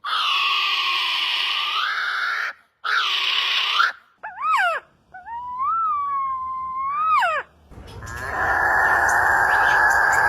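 Calls of different birds, cut one after another: two harsh, rasping calls, then a short and a long clear whistle that bend in pitch at each end, then a long hoarse, buzzing call near the end.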